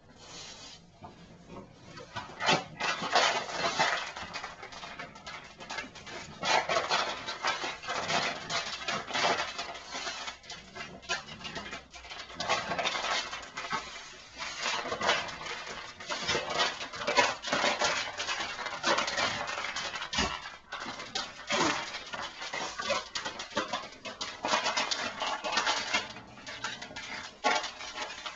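French bulldog playing with a plush lizard toy, chewing and mouthing it: irregular bursts of dog noises and rustling that start about two seconds in and keep coming.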